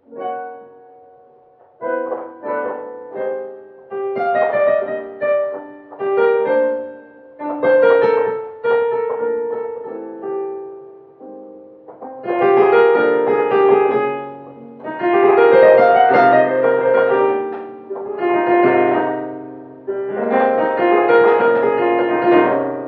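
Piano music played on a digital grand piano: slow phrases of chords and melody, each struck and left to die away, growing fuller and louder about halfway through.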